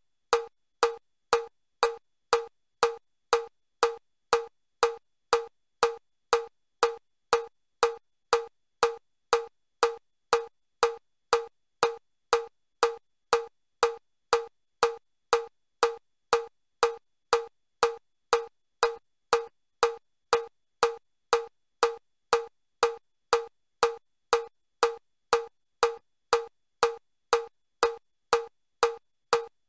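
Metronome beat, short sharp clicks of one pitch at a steady two a second (120 beats a minute), pacing level 4 of the Chester step test at 30 steps a minute.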